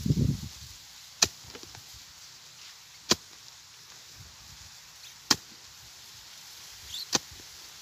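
A pick striking hard ground while digging a pit: four sharp blows about two seconds apart, with a dull low thud at the very start.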